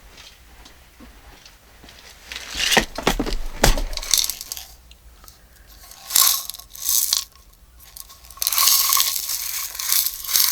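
Small beads rattling and clicking in a box as fingers rummage through them, in three bouts of rattling, the first starting about two and a half seconds in.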